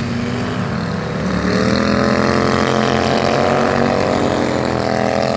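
Outlaw-class racing lawn mower engines running on the track. About a second and a half in, one engine grows louder and rises in pitch as a mower comes past close by, then holds loud.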